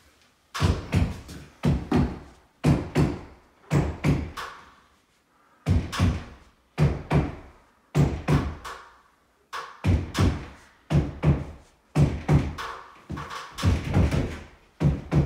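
Repeated knocks on a tapping block held against the top edge of a glued epoxy shower wall panel, seating the panel against the wall. The blows come in quick groups of two or three, a group about every second and a half, each with a low ring from the panel.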